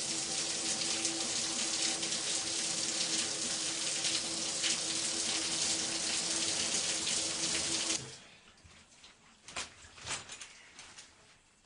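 Shower running: a steady hiss of water with a faint steady hum under it. It cuts off suddenly about eight seconds in as the water is turned off, followed by a couple of soft knocks.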